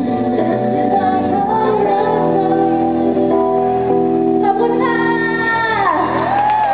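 Live band music with a woman singing the lead vocal into a microphone, drums and keyboard behind her. Near the end a held note slides down in pitch and back up.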